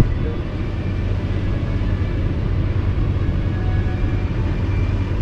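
Steady low rumble of a vehicle engine idling, even in level throughout.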